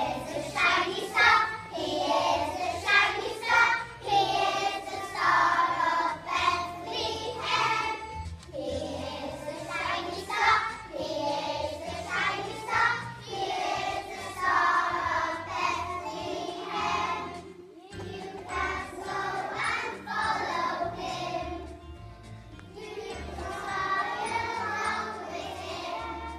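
A group of young children singing a song together over a musical accompaniment.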